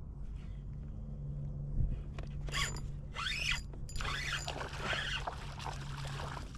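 Spinning reel working against a hooked small redfish (red drum): from about two seconds in, the drag buzzes in several short bursts as the fish pulls line, over a low steady hum.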